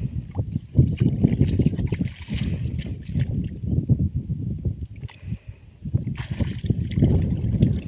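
Gusty low rumble of wind buffeting the microphone, over splashing of shallow water as hands work a net in it.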